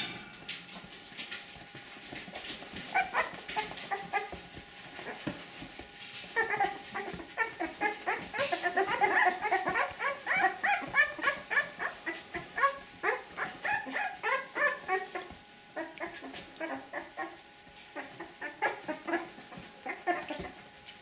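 A litter of young puppies squeaking and whimpering, many short high cries overlapping. The cries are busiest in the middle and thin out toward the end.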